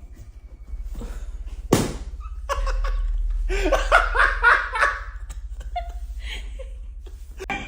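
People laughing, in bursts that rise and fall, after a single sharp knock about two seconds in.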